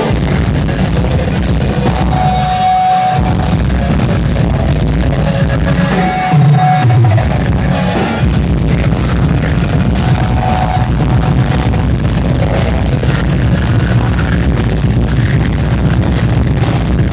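A live metalcore band playing loud, with distorted electric guitars and drums, heard from the audience.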